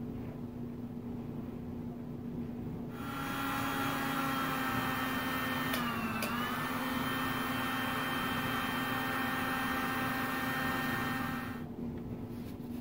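A small handheld electric motor runs for about nine seconds with a steady whine and hiss. It starts about three seconds in, its pitch dips briefly near the middle, and it cuts off near the end.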